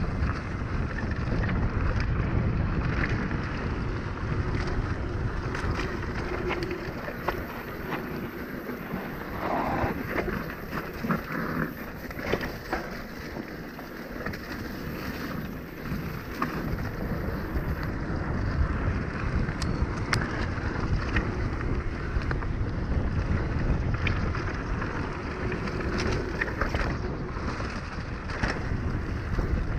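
Mountain bike riding down a dirt trail: knobby tyres crunching over dirt, leaves and loose stones, with rattles and clicks from the bike, and wind buffeting the camera microphone in a low rumble that eases off for a while in the middle.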